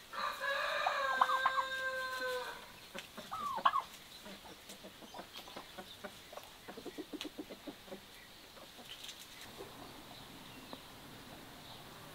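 A rooster crows once, a long held call lasting about two and a half seconds, followed by hens clucking: a short rising squawk, then a quick run of low clucks a few seconds later.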